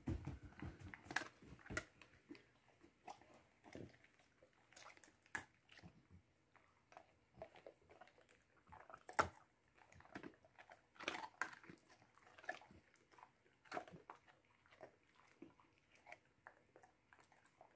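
Great Pyrenees chewing a dog biscuit: soft, irregular crunches and bites, a little louder near the middle.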